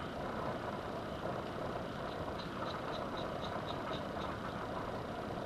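Steady background hum with a run of faint, even ticks, about four a second, through the middle.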